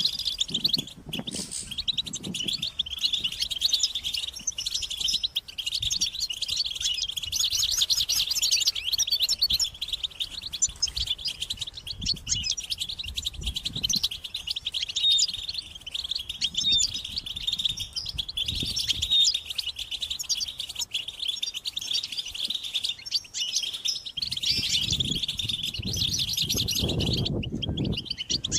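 Several European goldfinches twittering and singing together in a dense, unbroken stream of rapid, overlapping chirps and trills, the excited group chatter of mating calls. Some low thumps come in near the end.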